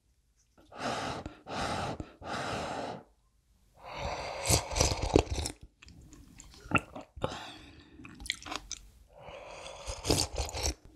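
Close-miked eating of spicy kalguksu noodle soup: three quick slurps of noodles, then a longer slurp followed by wet chewing with sharp mouth clicks. Near the end comes a long slurp of broth straight from the tilted bowl.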